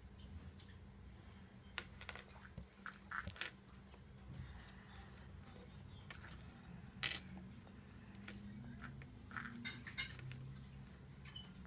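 Small plastic toy parts clicking and tapping against each other and the table as a Kinder Joy capsule toy car is fitted together by hand: scattered sharp clicks, the loudest about three and a half and seven seconds in, over a steady low hum.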